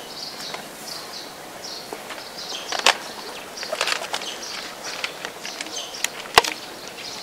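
Small birds chirping over and over in short, high calls, with a few sharp clicks, the loudest about six seconds in.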